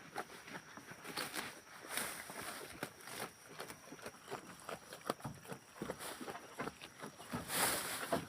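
Goats moving about, with irregular steps, knocks and rustling, and a louder rustle near the end.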